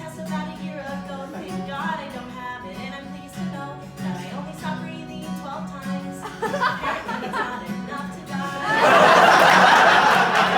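Acoustic guitar strummed in a steady rhythm with a woman singing over it. Near the end the audience breaks into loud applause and cheering, which becomes the loudest sound, while the guitar keeps playing beneath it.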